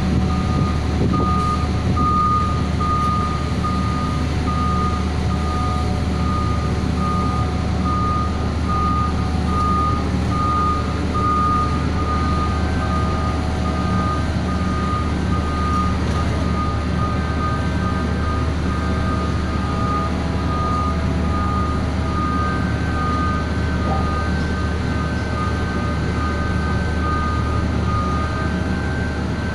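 A heavy machine's engine running steadily, with an electronic warning beeper sounding at one pitch about twice a second until near the end. Fainter whining tones join in from about halfway.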